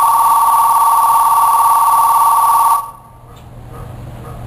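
Station departure bell ringing in two steady tones for about three seconds, then cutting off suddenly, heard from inside the train car as it stands at the platform.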